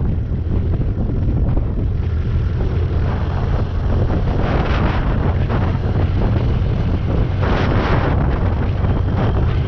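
Heavy wind buffeting on the microphone while travelling along a road, a steady low rumble with vehicle and road noise beneath. Two louder gusts of hiss come about five and about seven and a half seconds in.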